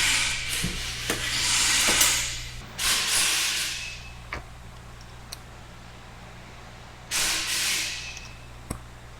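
Three hissing sprays, the first lasting about two and a half seconds and the others about a second each, with a few light sharp clicks between them.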